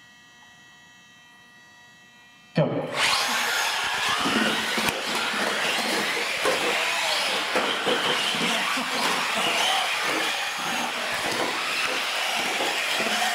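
A pack of nine radio-controlled UTVs launching at once about two and a half seconds in: a sudden loud start of many small electric motors whining at full throttle, with tyres on a concrete floor and scattered knocks, running on as the pack races. Before the launch there is only a faint steady electrical hum.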